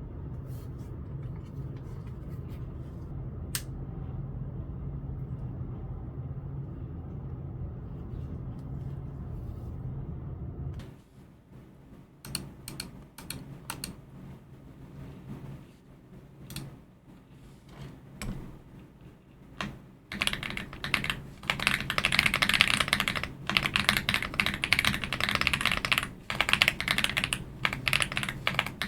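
Typing on an AULA F75 mechanical keyboard with LEOBOG Reaper switches. After a steady low hum with a few faint clicks, single keystrokes start about eleven seconds in, and from about twenty seconds in they become rapid continuous typing, the loudest part.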